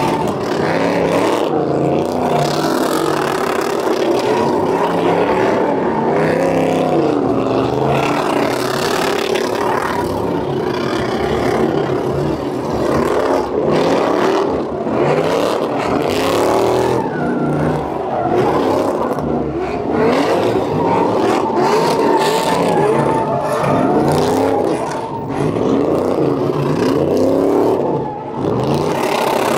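Several pickup truck engines revving hard during burnouts, their pitches climbing and dropping over one another without a break, over the hiss of tyres spinning on the pavement.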